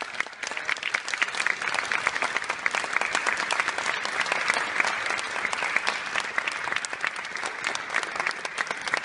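Audience applauding: dense, even clapping from a hall full of people.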